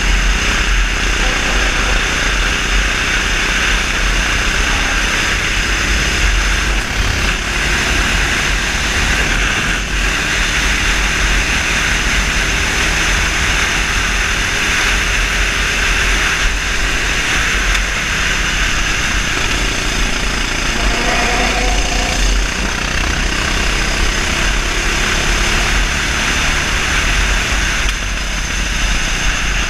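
Kart's 390cc single-cylinder four-stroke engine running steadily at racing speed, heard onboard, with a heavy low wind rumble on the microphone.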